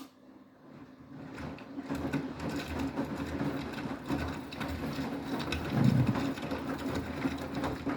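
Beko WTK104121W washing machine's drum motor starting up after a click and turning the drum, its mechanical whirr and clatter building over the first two seconds and then running steadily.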